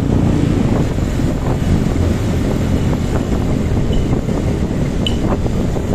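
Wind buffeting the microphone of a moving motorcycle, over the steady run of its engine. Two short high chirps come through about four and five seconds in.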